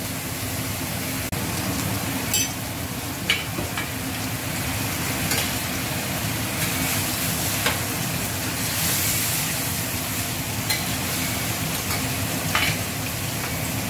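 Beef chunks and onion sizzling in a wide stainless steel pan while a metal ladle stirs them, with scattered clinks and scrapes of the ladle against the pan.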